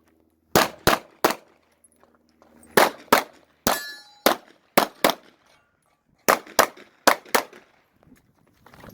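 Rapid 9 mm pistol fire from a Glock 45: about a dozen shots in quick pairs and triplets with short gaps between strings. A steel target rings once from a hit about four seconds in.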